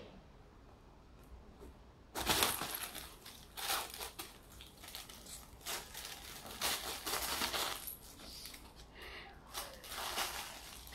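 Crinkly lining of a fabric cat tunnel rustling and crackling in irregular bursts as a cat scrambles and rolls inside it, starting about two seconds in.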